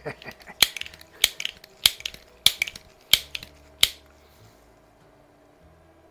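Benjamin 130-series multi-pump air pistol being pumped up: six sharp mechanical clicks, each followed by a little rattle, about every 0.6 s, stopping about four seconds in.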